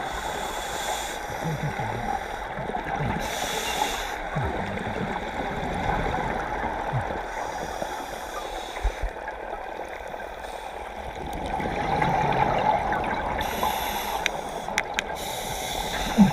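Underwater sound of scuba diving: regulator breathing with short hissing inhalations a few seconds apart and gurgling exhaled bubbles over a steady watery background.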